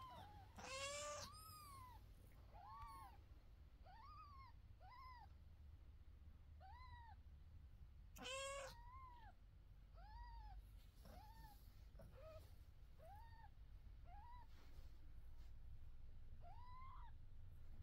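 Scottish Fold mother cat meowing: two longer, fuller meows, one about a second in and one about eight seconds in. In between and after them comes a run of short, higher, arched mews, roughly one a second.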